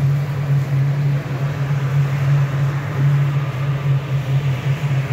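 A steady low hum over a haze of background noise, unbroken throughout.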